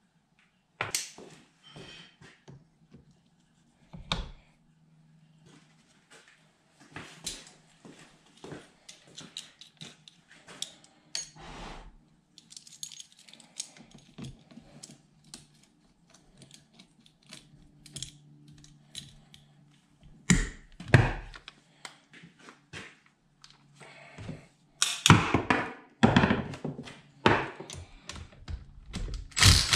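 Scattered clicks and knocks of metal tools and hydraulic pump parts being handled on a workbench. Near the end a cordless impact driver with a 5/8-inch socket hammers on a bolt in short loud bursts.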